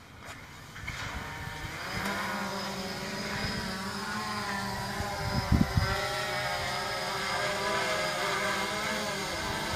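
Quadcopter's electric motors spinning up as the drone lifts off and climbs, a buzzing whine that grows louder over the first two seconds and then wavers in pitch as the throttle changes. A couple of brief low thumps come about halfway through.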